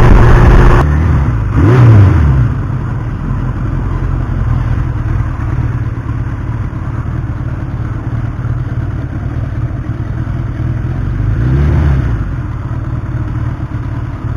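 1982 Suzuki GS1100E's air-cooled inline-four running while riding. It is loud for the first second, then settles lower and steady, with two brief rises and falls in revs, about two seconds in and near the end.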